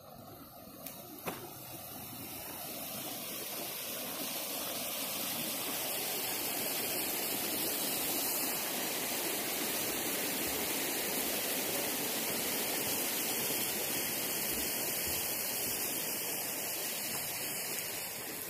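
Creek water rushing steadily, swelling over the first few seconds and falling off at the very end. Two faint clicks about a second in.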